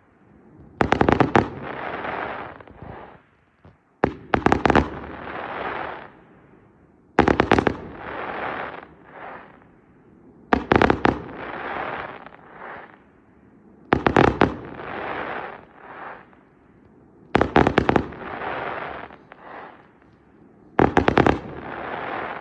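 Fireworks display: a cluster of sharp, rapid bangs about every three and a half seconds, seven in all, each followed by a fading crackle.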